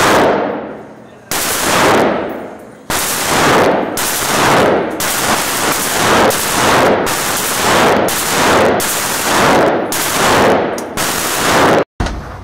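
Rifle shots fired in a steady string, about one a second, each with a long echo trailing off in the enclosed range. The firing cuts off suddenly near the end.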